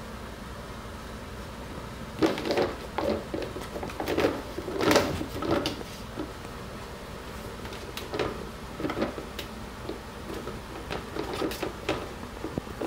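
Plastic kitchen bin lid knocking and clattering in irregular bursts as cats climb on it and push at it. The clatter starts about two seconds in and is loudest near the middle, then carries on as scattered knocks.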